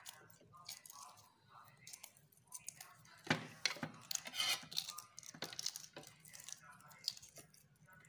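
Hard-boiled egg shell being cracked and peeled off by hand: small irregular crackles and tearing of shell and membrane, busiest around the middle.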